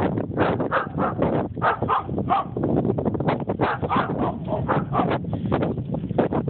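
Dogs barking over and over in a fast run, several barks a second.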